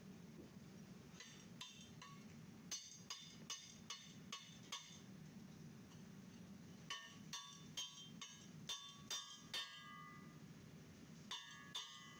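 Small hand hammer tapping on a sand-cast aluminium finned casting and the steel rod held in it: bright, ringing metallic taps about three a second, in runs of eight to ten with short pauses between.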